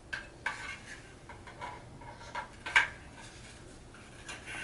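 Hard plastic toy crane parts clicking and knocking together as they are handled and pressed into place, with one sharper snap a little before three seconds in.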